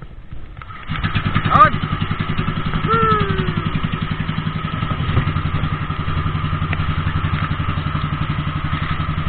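Small outrigger fishing boat's engine starts about a second in and then runs steadily with a fast, even putter. A short call from a voice rises and falls over it twice, about a second and a half and three seconds in.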